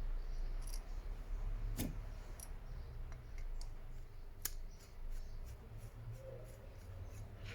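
Scattered light clicks and taps over a low steady hum, the sharpest about two seconds in and again past four seconds.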